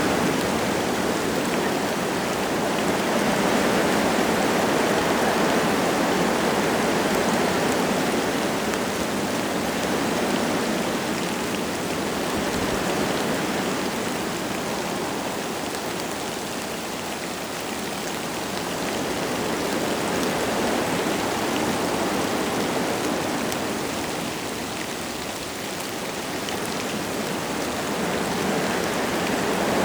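Wind gusting through forest trees: a steady rushing that swells and eases every several seconds. Light rain is falling.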